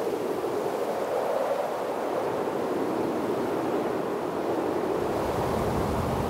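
A steady, rushing, wind-like noise, with a deeper rumble coming in about five seconds in.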